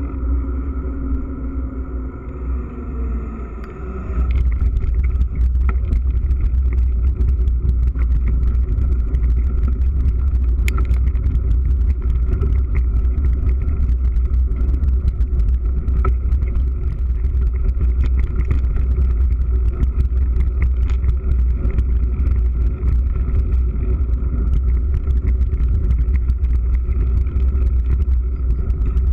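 Mountain bike riding as heard through a GoPro in its waterproof housing: a steady low rumble of wind and vibration over tyre noise. About four seconds in, the sound turns louder and rougher, with many small clicks and knocks as the tyres run over a rutted dirt track.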